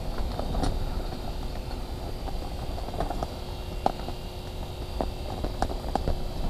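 Scattered light clicks and knocks over a low steady rumble, from a fishing rod, line and clothing being handled while jigging through the ice.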